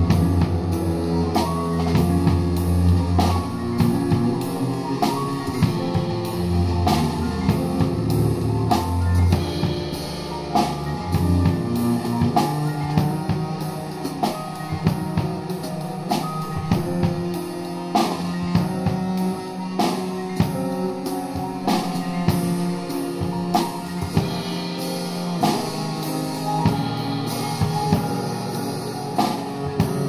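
Jazz piano trio playing: acoustic piano, double bass and a drum kit played with sticks, with frequent drum and cymbal strokes over the piano and bass line.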